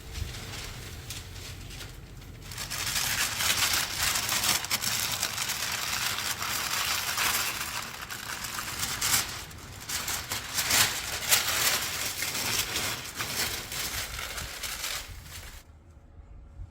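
Paint spray gun spraying: a hiss of air and paint that starts after a couple of seconds, runs in two long passes with a short dip about ten seconds in, and stops near the end.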